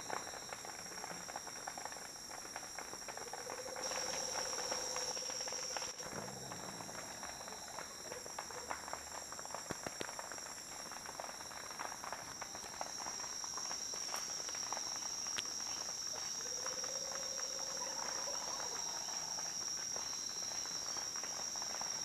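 Night insects, crickets, trilling steadily in a high continuous chorus, with many faint scattered clicks and crackles.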